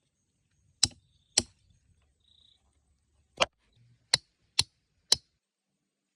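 Six sharp knocks: a pair about a second in, then four more in quick succession in the second half.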